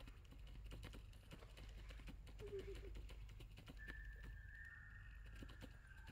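Young long-tailed macaque chewing and handling food: faint, irregular small clicks. A thin, high, steady whistle-like tone comes in about four seconds in and holds, sinking slightly in pitch.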